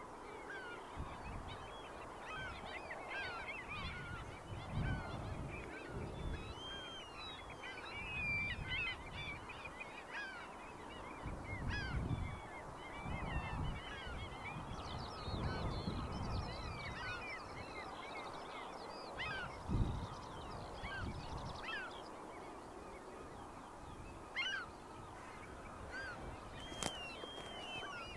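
A flock of geese honking, many calls overlapping throughout, with irregular low rumbles and a low thump about twenty seconds in.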